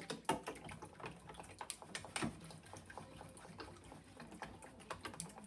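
Wooden chopsticks beating eggs in a stainless steel bowl: quick, irregular clicks of the sticks against the metal.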